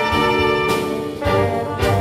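Saxophone playing a slow, sustained solo melody over a full symphony orchestra with grand piano, the notes changing twice and a deep bass note coming in about halfway through.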